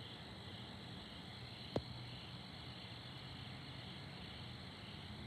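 Faint, steady chorus of night insects, with a low steady hum beneath and one sharp click a little under two seconds in.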